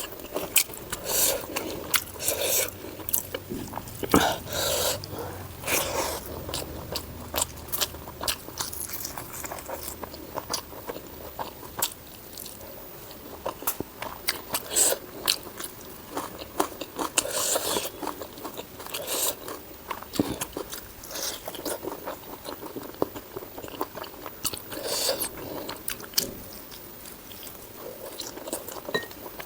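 Close-miked mukbang eating: a person chewing and biting into spicy pork with rice, with wet mouth smacks and crunching at an irregular pace.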